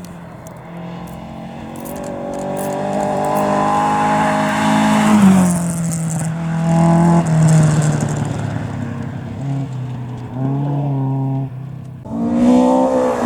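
A historic rally car's engine at full throttle, revs climbing and growing louder, then dropping sharply about five seconds in as the driver lifts off. It follows with lower revs and a couple of short throttle blips around ten seconds, then revs rise hard again near the end.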